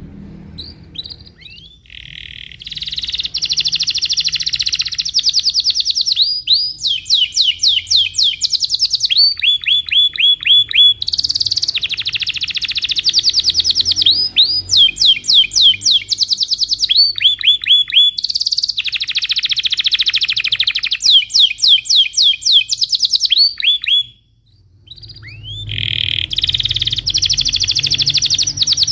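Domestic canary singing a long rolling song: phrase after phrase of fast trills, each built of quick repeated down-sweeping notes at changing pitches. The song breaks off briefly near the end, then starts again.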